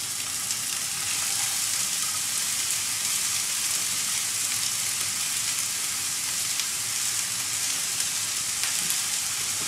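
Diced carrot, onion and other vegetables sizzling steadily in hot olive oil in a frying pan, just tipped in to start softening for a sofrito.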